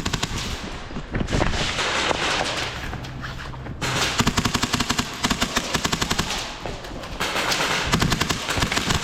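Airsoft guns firing rapid full-auto bursts, a dense rattle of many quick shots that overlap in a running exchange of fire, heaviest in the second half.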